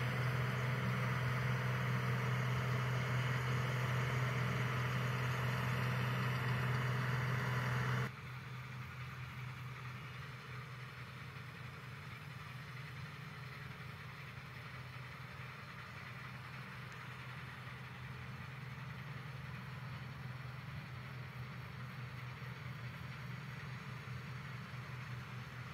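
Claas Dominator 58 combine harvester's diesel engine running steadily as the machine works, a constant low hum. About eight seconds in it drops suddenly to a quieter hum that carries on steadily.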